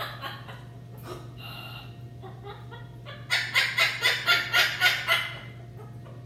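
Pet macaw calling: softer chatter, then about two seconds in the second half a loud run of rapid repeated squawks, about four a second.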